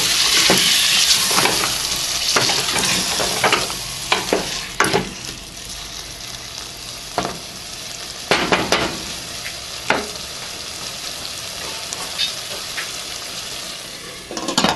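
Potato and chickpea curry sizzling in hot oil in a stainless steel pot after a little water is added, the sizzle strongest at first and dying down. A spoon stirs and knocks against the pot now and then, and a glass lid clatters onto the pot near the end.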